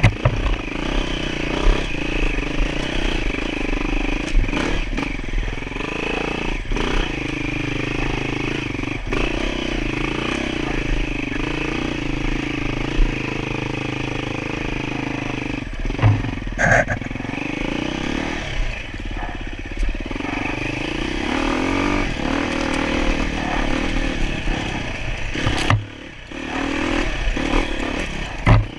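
Enduro motorcycle engine running under changing throttle, with scattered clattering knocks and a brief drop in the engine sound near the end.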